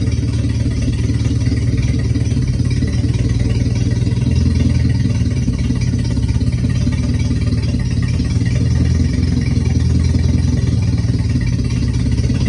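Toyota forklift's engine running steadily at idle, with a fast even pulsing and no change in speed.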